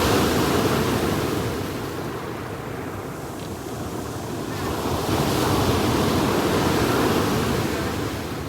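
Sea waves breaking and washing onto the shore in a steady rush. The surf swells twice, once at the start and again about halfway through, easing off in between.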